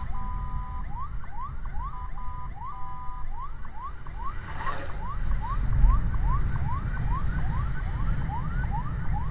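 Emergency-vehicle siren wailing in a rapid yelp of short rising chirps, about three a second, broken twice in the first three seconds by short steady two-note tones. Vehicle and road rumble runs underneath.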